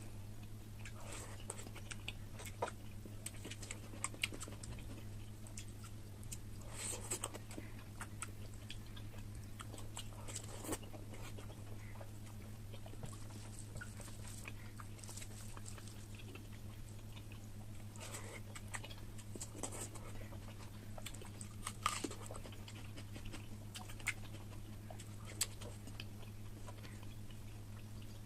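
Close-up chewing and biting of oily mutton curry: wet mouth noises with scattered sharp crunches and clicks, over a steady low hum.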